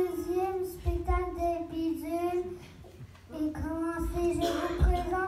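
Children singing a held, steady melody in two phrases, with a short break about three seconds in.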